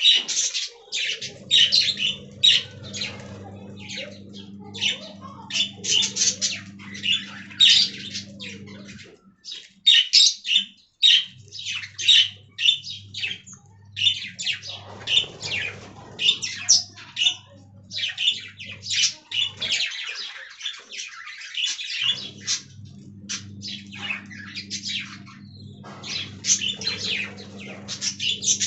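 Budgerigars chirping and squawking, with many short, high calls in quick succession throughout. Underneath is a low steady hum that stops for a couple of seconds around the nine-second mark and again around twenty seconds, then returns.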